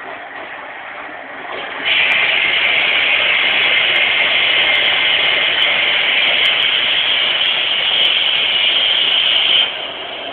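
1992 AEG Lavamat LV36 front-loading washing machine filling with rinse water: a steady rush of water, with a loud hiss of incoming water that rises about two seconds in and drops back near the end.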